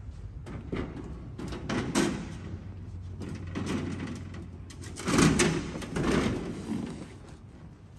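A stiff black panel being shifted and pressed into place against a truck's wheel well and body, giving irregular scrapes and knocks, loudest about five seconds in, over a steady low hum.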